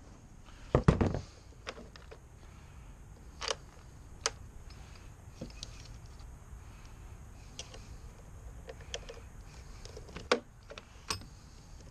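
Scattered light clicks and knocks, with a louder clatter about a second in, over a low steady rumble.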